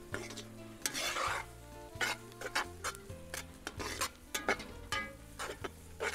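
A slotted metal spoon stirring and scraping fried onions and tomato paste in a steel frying pan, clinking against the pan in quick irregular strokes while the food sizzles.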